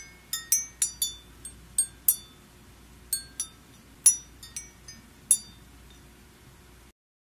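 Wind-chime-like tinkling: bright, high metallic notes struck irregularly, each ringing briefly, thick at first and then more sparse, stopping shortly before the end.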